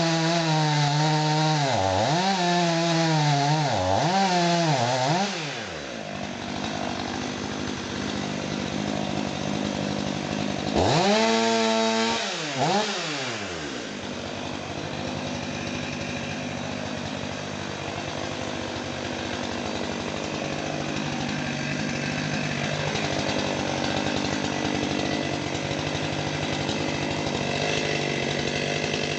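Stihl MS 500i fuel-injected two-stroke chainsaw revving in several quick surges, then running more steadily, with another burst of revving about eleven seconds in before settling back to steady running.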